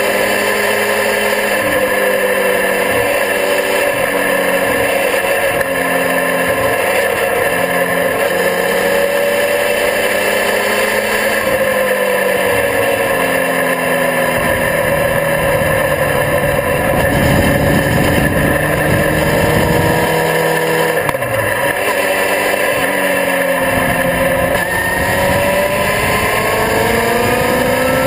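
Onboard sound of a sport motorcycle's engine at speed on a race track, its pitch rising and falling as the rider accelerates and eases off through the corners, with a steady rush of wind over the camera. Past the middle the wind rush briefly takes over, and near the end the engine pitch climbs as the bike accelerates.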